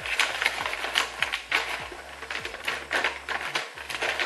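Packaging and plastic parts of a new nebulizer being handled during unboxing: a run of irregular small clicks and crinkles.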